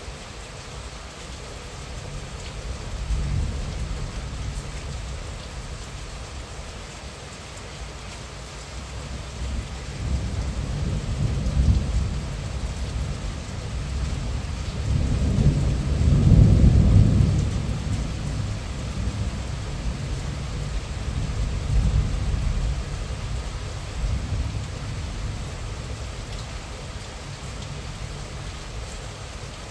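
Steady moderate rain falling, with a long low rumble of thunder that swells and fades in several waves, loudest about halfway through.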